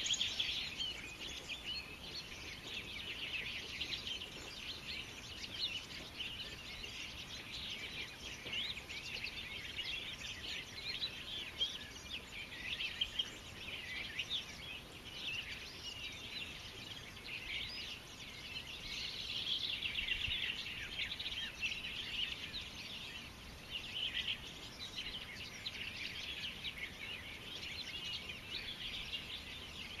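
Several songbirds singing over one another in a continuous chorus of quick, high chirps and trills.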